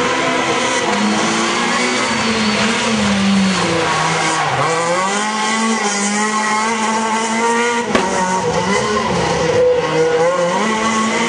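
Rally car engine at high revs; its note drops about four and a half seconds in, then climbs again as the car accelerates past, with a sharp crack about eight seconds in.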